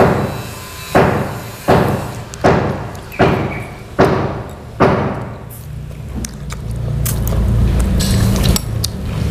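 Hammering from nearby building work: seven ringing hammer blows at an even pace, about one every three-quarters of a second, stopping about five seconds in. A steady low rumble then builds up and stays to the end.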